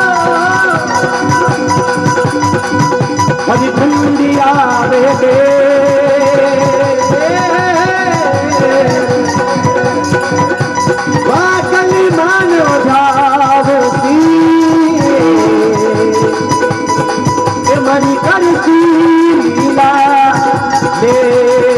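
Instrumental interlude of a Rajasthani folk bhajan: a melody with sliding ornaments over a held drone, driven by fast folk percussion.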